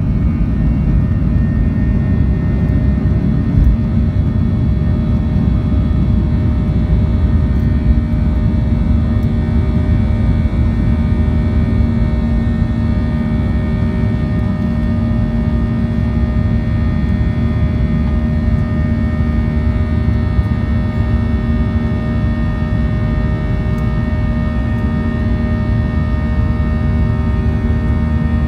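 Boeing 737 jet engines at takeoff thrust, heard inside the cabin over the wing: a steady, loud roar with a held hum and fainter whines on top. The rumble of the wheels on the runway dies away a few seconds in as the plane lifts off and climbs.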